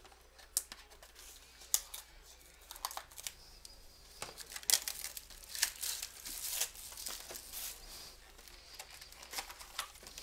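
Plastic wrapping crinkling and tearing as a sealed box of trading cards is opened by hand, with scattered crackles and clicks, busiest in the middle.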